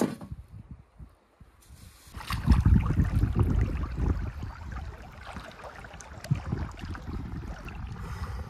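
Wind buffeting the microphone in uneven gusts, starting about two seconds in, after a short, quiet stretch opened by a single sharp click.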